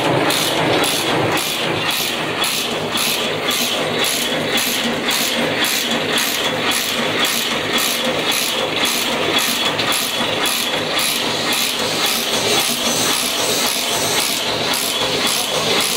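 Single-strand barbed wire making machine running at speed: a steady mechanical clatter of gears and the barbing head, repeating in a fast, even rhythm as it twists barbs onto the line wire.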